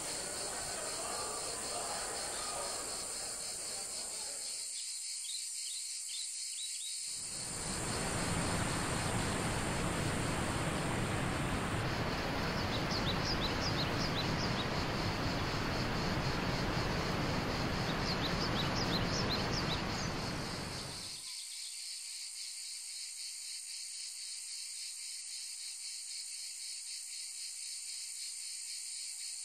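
Cicadas buzzing steadily throughout. For the first few seconds a soft background murmur lies under them. From about 7 s to 21 s a waterfall's rushing water comes in loud and even over the buzz, with a few bird chirps on top, then cuts out, leaving the cicadas alone.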